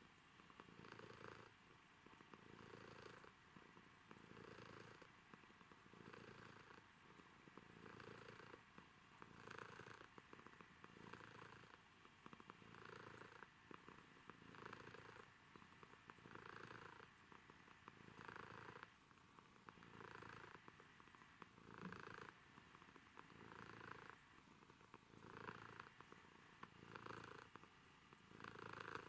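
Domestic cat purring faintly and steadily while being stroked, in a slow in-and-out rhythm of about one breath a second.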